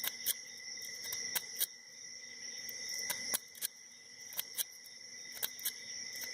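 A W rake being worked in and out of a Commando five-pin padlock's keyway under tension: about a dozen sharp, irregular metallic clicks as the pick passes over the pins.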